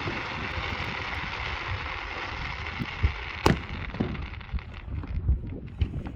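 Fireworks display: the dense crackling hiss of a just-ended barrage fading away, a single sharp bang about three and a half seconds in, and scattered low distant booms.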